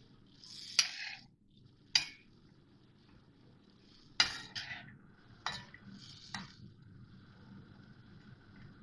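Flat metal spatula stirring chicken in yogurt in a karahi: about six sharp clinks and short scrapes of metal on the pan, the loudest about four seconds in, over a faint steady sizzle of the frying.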